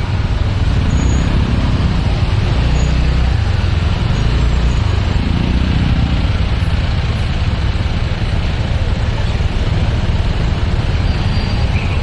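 Road traffic in a slow jam: engines of cars, buses and trucks running as a steady low rumble, with no horns sounding.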